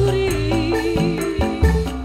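Live Javanese campursari-koplo band music: a woman singing over a steady beat from drums, keyboard and gamelan metallophones.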